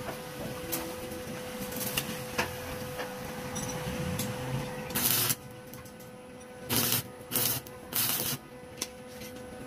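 Stick (arc) welding on steel rods: four short crackling bursts of the arc, one about halfway through and three in quick succession near the end, the last the longest. A few faint clicks come earlier.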